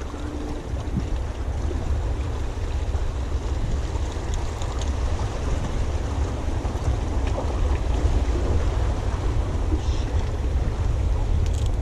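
Wind buffeting the microphone: a steady, fluctuating low rumble, with a few faint clicks.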